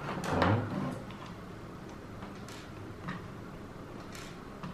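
A few faint, sharp clicks and taps at irregular intervals as the unscrewed metal casing of a car power inverter is handled on a desk.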